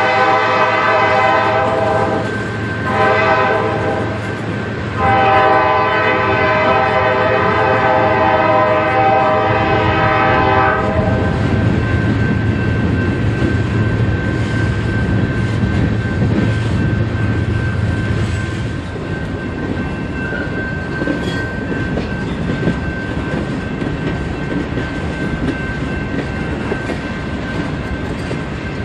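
Freight train horn sounding three blasts: a long blast ending about two seconds in, a short one, then a long one held for about six seconds. Under the horn and after it, the train's boxcars, tank car and hoppers roll past on the rails, with a thin steady squeal over the wheel noise.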